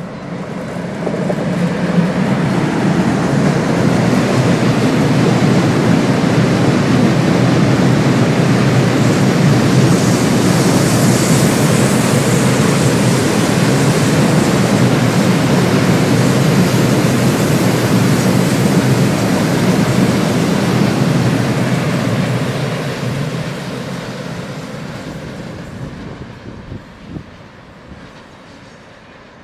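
Freight train of tank wagons behind a class 185 electric locomotive rolling past: a steady rumble and rattle of wheels on rail that builds in the first couple of seconds, holds, then fades away from about 22 seconds in as the train moves off. A short knock sounds near the end.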